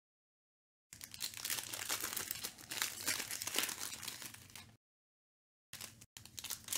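Foil trading-card pack wrappers crinkling and tearing as they are handled and ripped open. The sound cuts out to dead silence for about the first second and again for about a second near the end.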